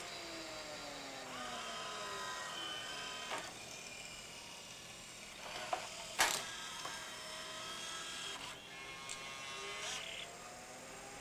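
Pioneer CLD-3070 LaserDisc player's Alpha Turn auto-reverse mechanism changing sides: a motor whine falls in pitch as the disc spins down, small motors whir and the mechanism clicks sharply a few times, loudest about six seconds in, while the pickup swings over to the other side of the disc. Near the end a whine rises again as the disc spins back up.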